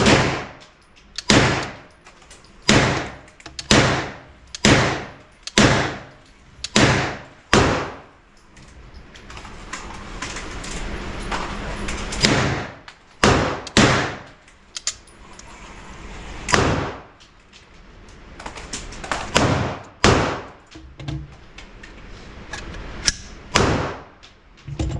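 A string of gunshots, about one a second for the first eight seconds, each ringing out briefly. After a short break, more shots follow at an uneven pace.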